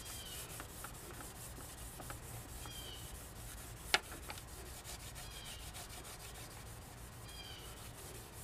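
Steel wool charged with metal polish rubbed back and forth over a handsaw's steel saw plate, scrubbing off the last of the rust and corrosion: a faint, steady scrubbing with one sharp click about four seconds in.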